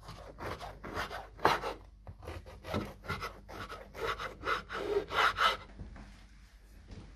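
Knife sawing through a crusty loaf of bread on a wooden board: quick rasping strokes, about three a second, stopping about five and a half seconds in.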